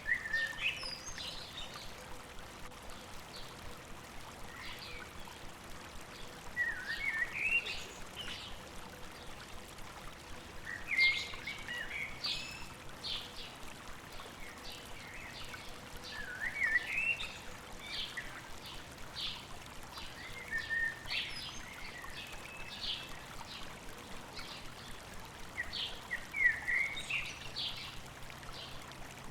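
Songbirds singing short phrases of rising, zig-zagging notes that recur every four or five seconds, with scattered short chips, over a steady rush of running stream water.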